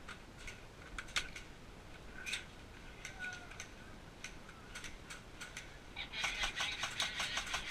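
Airsoft gun fire: scattered single sharp cracks, then a fast, even full-auto burst starting about six seconds in that grows louder and keeps going.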